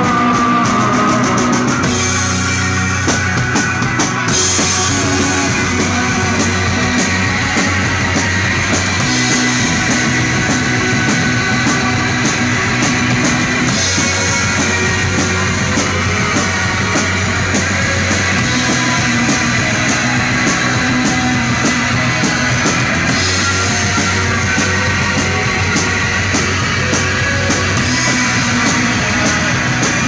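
Live garage rock band playing loud: electric guitar over a drum kit with cymbals, the full band going without a break.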